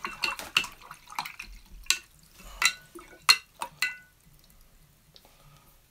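Watercolour brush being rinsed in a water pot: water splashing and several sharp, ringing clinks as the brush knocks against the pot, the last about four seconds in.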